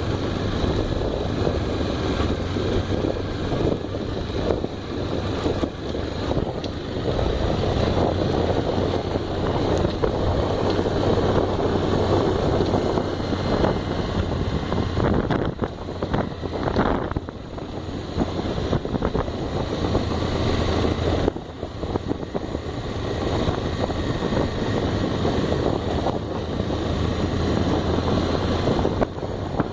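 Honda XRE motorcycle's single-cylinder engine running steadily while riding, with heavy wind noise on the microphone. The sound eases off briefly twice past the middle.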